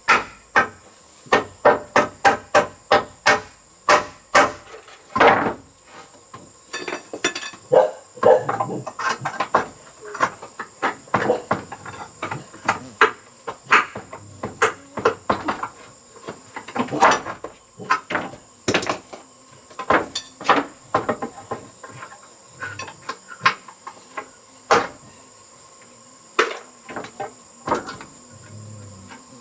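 Hammer blows on wood: a series of sharp knocks, in quick even runs of two to three a second over the first few seconds, then more scattered. A steady high insect drone runs underneath.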